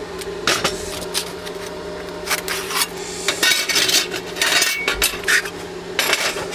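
Pieces of pre-cut sheet steel being handled, clinking and clattering against each other and the work surface in a dozen or so irregular knocks.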